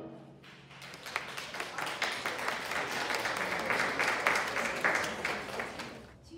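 A small audience applauding after a concert band piece ends: the clapping builds about half a second in, with individual claps audible, and fades away near the end.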